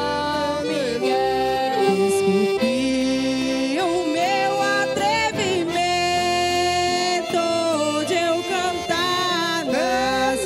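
Reisado folk song from northeastern Brazil: a woman singing the melody in Portuguese, accompanied by two accordions and an acoustic guitar.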